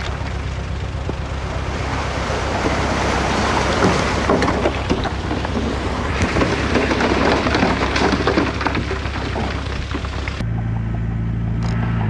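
Komatsu D20 bulldozer working, its diesel engine running under a dense crackling of soil and stones being pushed and crushed. About ten seconds in the sound changes suddenly to a steadier, smoother engine hum.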